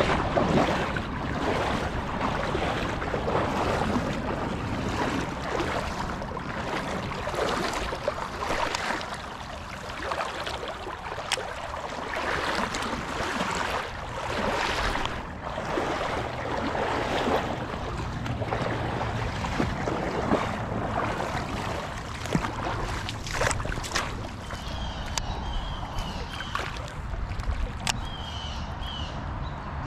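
Shallow creek water sloshing and splashing around an angler wading, swelling and fading every second or two, with wind on the microphone. Near the end a small bird chirps in short repeated calls.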